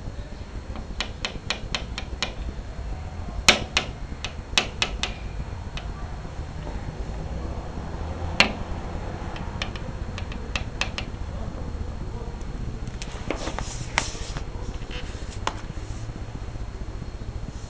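A cat playing, making quick runs of sharp clicks and taps in several bursts, a few louder knocks among them, over a steady low background hum.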